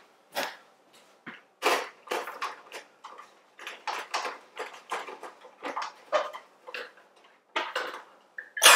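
A plastic carbonation bottle is handled and fitted into a SodaStream soda maker: a string of short clicks and knocks. Just before the end, the machine's loud buzzing burst of CO2 injection begins.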